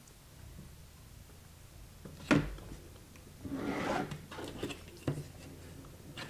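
Paper being scored with a stylus: a sharp knock about two seconds in, then a second or so of rubbing and scraping, and a smaller knock near the end.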